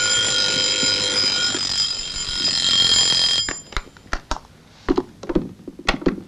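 Alarm clock ringing steadily, then cut off suddenly about three and a half seconds in, followed by a few short knocks and clicks.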